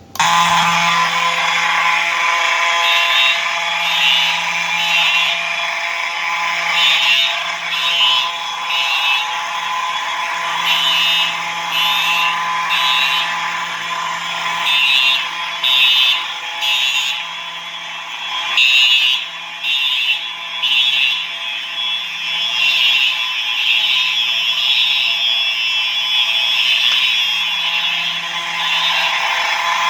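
Simplex fire alarm horns sounding together: the low rasping buzz of an electromechanical horn, mixed with electronic horn tones. Groups of short high-pitched pulses repeat over it, the code 3 temporal pattern.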